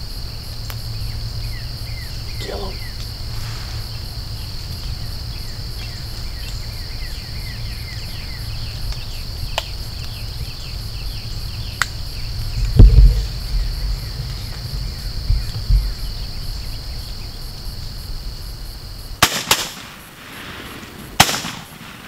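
Outdoor field ambience: a steady high insect drone with scattered bird chirps over a low rumble on the microphone. A heavy low thump comes about two-thirds of the way through. Two sharp clicks near the end, where the drone cuts off.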